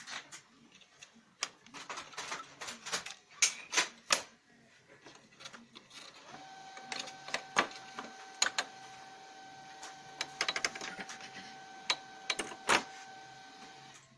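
Lexmark X364dn laser printer working: a run of irregular clicks and knocks, then about six seconds in its drive starts with a steady whine and repeated clicking that stops near the end. This is the grinding noise, which the owner traced to a faulty duplex assembly.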